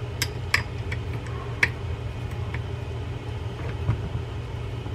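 Metal parts and tools clicking against each other as the handle nut and star drag are fitted to a large Penn Senator 12/0 trolling reel: a few sharp clicks, mostly in the first two seconds. A steady low hum runs underneath.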